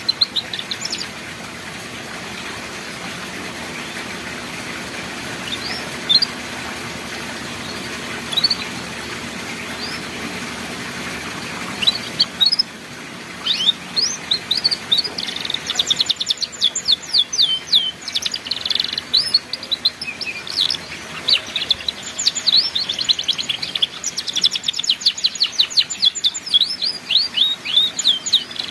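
Young domestic canary singing in a twittering style: a few scattered single chirps over a steady hiss at first, then from about halfway a fast, continuous run of rapid chirps and trills.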